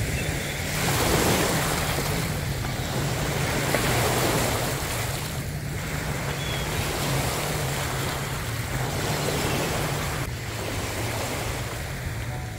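Waves washing onto a sandy beach, with wind gusting on the microphone; the wash swells and eases every few seconds.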